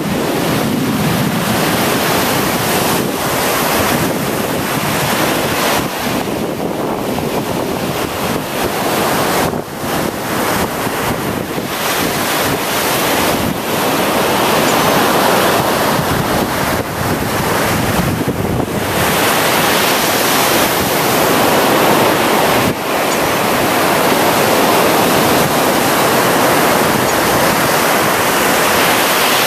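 Gulf of Mexico surf breaking and washing onto a sandy beach, with wind buffeting the microphone; the rush swells and eases, growing louder and steadier in the second half.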